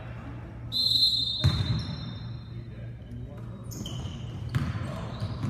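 Basketball game on a hardwood gym floor: a short, high squeal about a second in, then the ball thudding on the floor and shoes squeaking as play gets going, with voices in the background.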